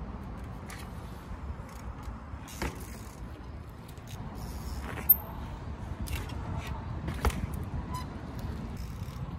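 Mountain bike clinking and rattling, with a few sharp knocks about two and a half, five and seven seconds in, over a steady low rumble.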